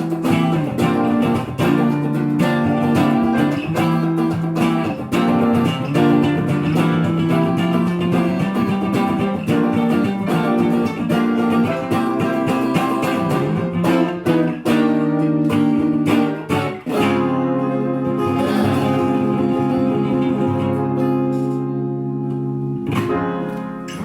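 Guitars playing a live song's closing passage, strummed chords for most of it. It ends on one long held chord that rings out and fades near the end.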